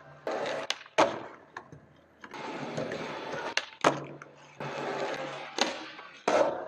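Skateboard wheels rolling on a concrete garage floor, broken by several sharp clacks of the tail popping and the board landing during flat-ground tricks.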